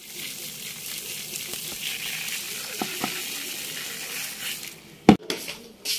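Dry whole spice seeds (fenugreek, nigella and fennel) poured from a plate onto cut raw mango and green chillies in a plastic tub, a steady hissing patter of falling seeds for about four and a half seconds. A single sharp knock follows about five seconds in.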